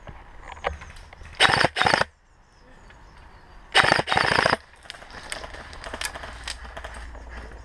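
Gas blowback airsoft rifle (M4 type) firing short full-auto bursts: two quick bursts about a second and a half in, then two more about four seconds in, each a fast rattle of shots. Softer rustling and ticks of brush between and after the bursts.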